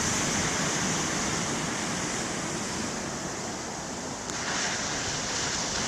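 Big ocean waves breaking on the shore in a steady wash of surf, with a fresh surge of breaking water a little past halfway.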